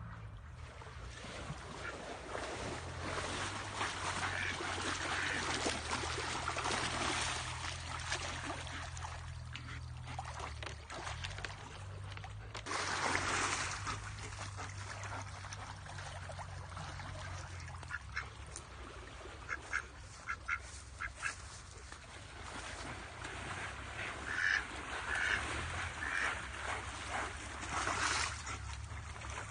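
Ducks quacking in short runs of calls, over a steady low hum and background noise, with a brief louder rush of noise about halfway through.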